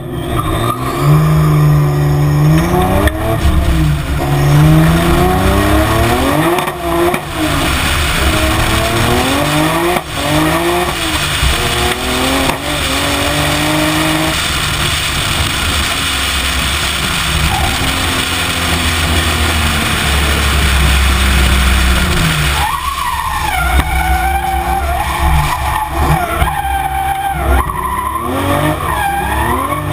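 Toyota Supra's 2JZ straight-six engine revving up and down over and over as the car drifts, with tyres squealing and skidding on the tarmac.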